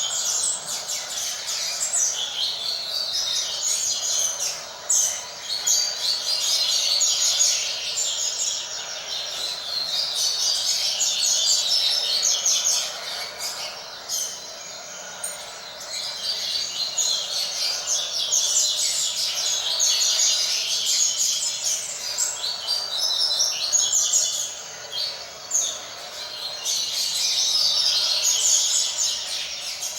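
A young double-collared seedeater (coleiro) sings long runs of rapid, high twittering phrases with brief pauses between them, practising the song it is being taught.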